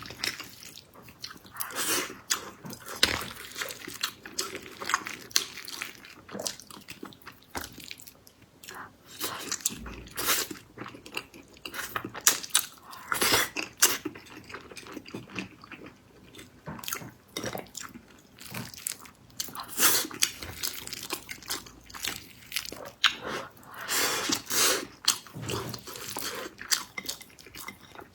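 A person chewing and smacking their lips while eating soft, sticky food, an irregular run of wet mouth clicks and smacks.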